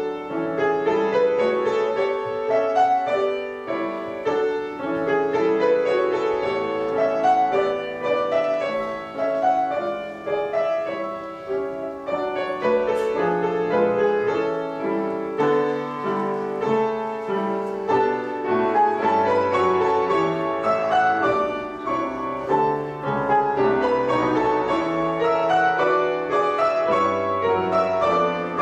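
A grand piano played solo: a continuous classical piece made of many quick, short notes.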